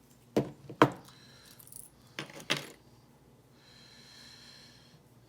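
Small metal lock parts clinking as the core is pushed out with a plug follower: two pairs of sharp clicks about two seconds apart.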